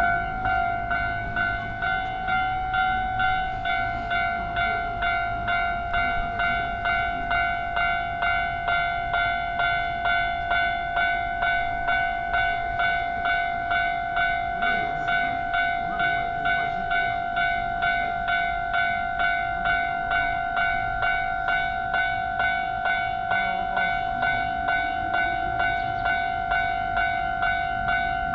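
Japanese railway level-crossing warning bell ringing steadily, an even electronic 'kan-kan' at about one and a half strokes a second, warning that a train is approaching. A low rumble runs beneath it.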